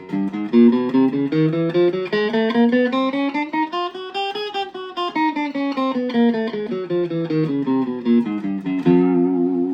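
Electric guitar through a BOSS Katana Mini amp playing the 1-2-3-4 chromatic finger exercise with alternate picking. It is a quick, even run of single picked notes that climbs steadily in pitch across the strings to about halfway through, then comes back down in reverse.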